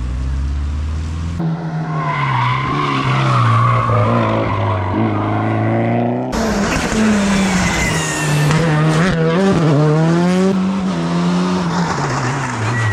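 Rally cars at full throttle on a stage, their engines revving hard and dropping with each gear change and lift. The sound changes abruptly twice, about a second and a half and six seconds in, as one car's pass gives way to another's.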